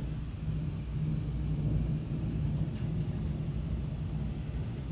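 Distant thunder rumbling steadily and without a break.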